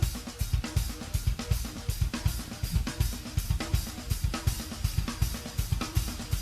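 Instrumental progressive metal track playing, led by busy drumming: a rapid kick drum under a constant wash of cymbals and hi-hat, with snare hits.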